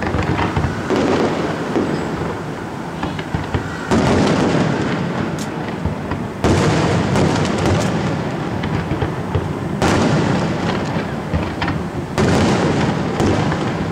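Fireworks display: aerial shells bursting in a dense, continuous barrage of booms and crackling. Fresh loud volleys break in about every two to three seconds.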